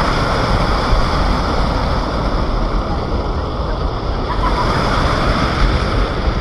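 Rushing water from a waterfall, a steady loud noise, with wind rumbling on the microphone.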